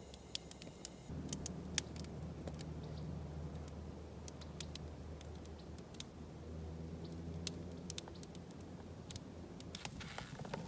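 Wood campfire crackling with scattered sharp pops under a cooking pot, over the low steady hum of a distant engine that comes in about a second in and fades near the end.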